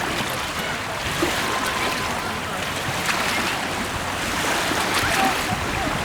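Steady rush of wind and sea water with small waves splashing.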